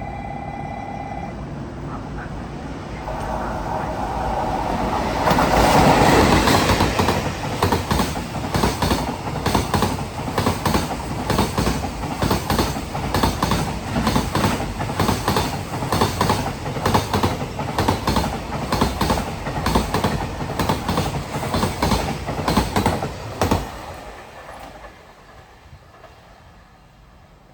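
A long train passing through the station. It builds up over a few seconds, then its wheels clatter over the rail joints in a steady rhythm of about two clicks a second for roughly eighteen seconds. The sound drops off suddenly as the train clears and then fades away.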